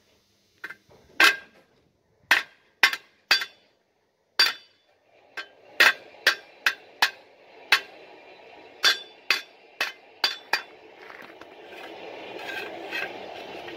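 A steel hammer striking a flat steel ring with bolt holes laid against an anvil: about seventeen sharp metallic clanks with short ringing, in uneven groups, coming faster from about five seconds in. A steady background noise grows toward the end.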